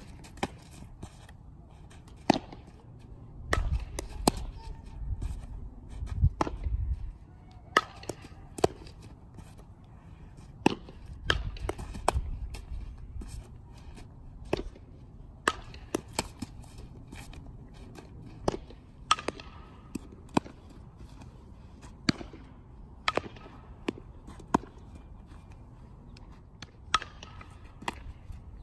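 Repeated sharp cracks and pops a second or two apart from a softball fielding drill: the ball struck by a bat, smacking into leather gloves and thrown across the infield. Low rumbling noise comes and goes in a few stretches.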